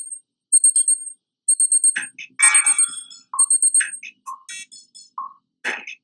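Digital alarm clock beeping in short groups of rapid high-pitched beeps, about one group a second. From about two seconds in, other short sounds and brief tones mix in.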